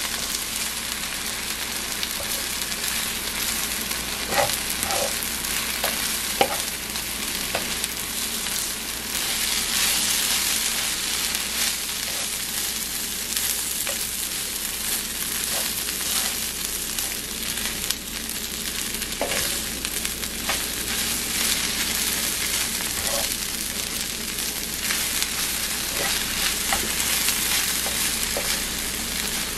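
Veggie chicken patties, spinach and red onion sizzling in a frying pan, with a spatula stirring and clicking against the pan now and then.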